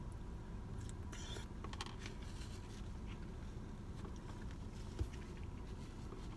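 Faint eating sounds of someone chewing a spoonful of soup, with small clicks and rustles from the spoon, plastic bowl and napkin over a steady low hum; a single sharp thump about five seconds in.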